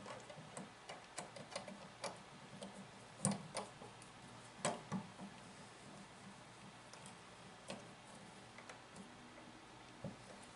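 Flat-blade screwdriver turning the centre screw of a plastic outlet cover plate: a run of faint, irregular clicks and ticks from the blade in the screw slot and the plate seating against the outlet, with a couple of louder clicks about three and five seconds in.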